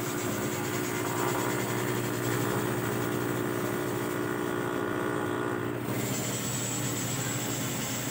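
Steady cabin hum of a running Toyota Innova with the air-conditioning blower on, carrying a few steady tones under a high hiss.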